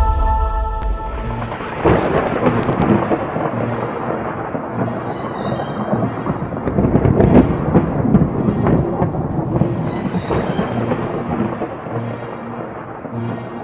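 Thunderstorm sound effect, rumbling thunder with rain, layered under background music.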